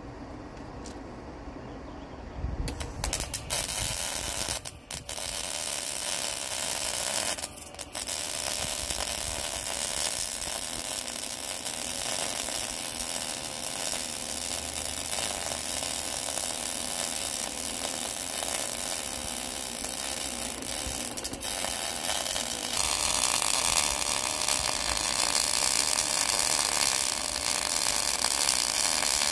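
Arc welding: a steady, dense crackle and sizzle as a weld bead is run over earlier tack welds. It starts a couple of seconds in, stops briefly twice, and turns brighter and hissier near the end.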